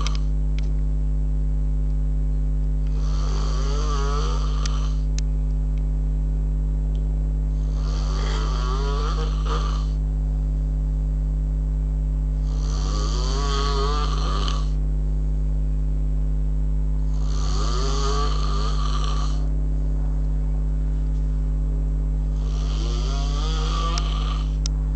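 Snoring: five long snores, one about every four to five seconds, each lasting about two seconds with a wavering pitch, over a steady low hum.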